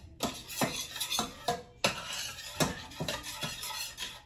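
A spoon stirring thick tomato sauce in its container, scraping and knocking irregularly against the sides about twice a second.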